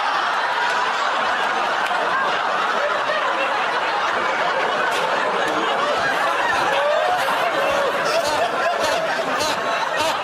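Studio audience laughing steadily and heavily, many voices at once, with a few short sharp sounds in the second half.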